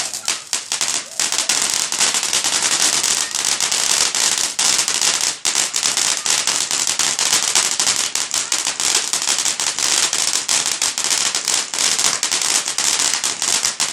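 Consumer fireworks crackling: a dense, unbroken run of rapid small pops with a sizzling hiss.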